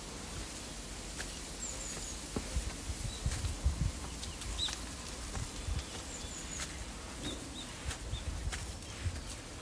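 Soft footsteps climbing stone steps, with small birds giving short, high chirps now and then.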